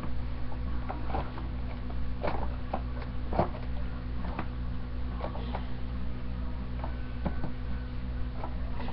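Scissors cutting hard plastic packaging, irregular snips and crackles scattered over a steady low hum.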